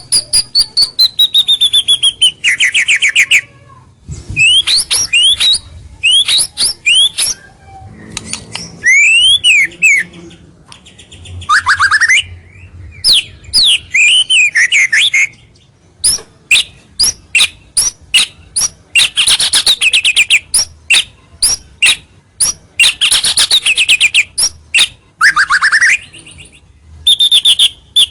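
White-rumped shama (murai batu) in full song: loud, varied phrases of rapid sharp clicks and swooping whistled notes, coming in bursts with short pauses between them.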